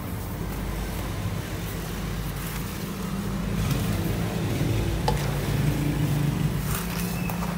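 Steady low rumble, with a roll of window-tint film and its cardboard box being handled: a sharp click about five seconds in and crinkling near the end.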